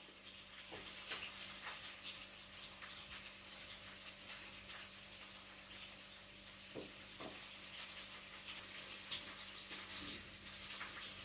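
Faint sizzling and crackling of hot frying oil in a pan, with scattered small pops over a steady low hum.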